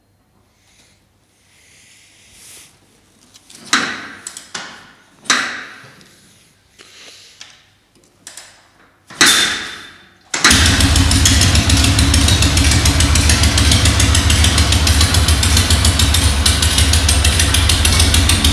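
Several short scuffs and clunks, then about ten seconds in the Ural M-66's 750 cc sidevalve boxer-twin engine catches and runs at a steady idle.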